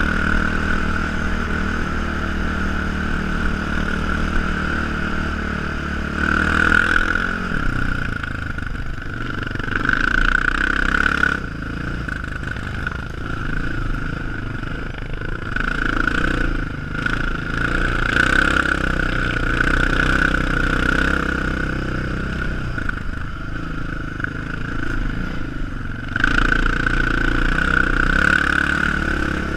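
Sport ATV engine running under the rider while riding a sandy trail, the throttle opening and easing several times so the engine note surges and drops. A steady high whine runs under it throughout.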